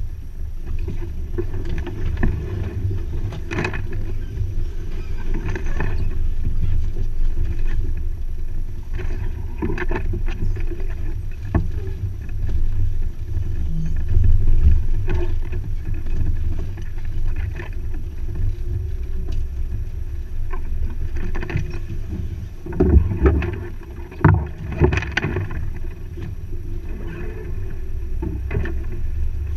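An off-road 4x4 driving slowly over a rutted, muddy forest track: a steady low engine and drivetrain rumble, with knocks and rattles from the body and suspension as it lurches over the ruts. A burst of louder knocks comes about three-quarters of the way through.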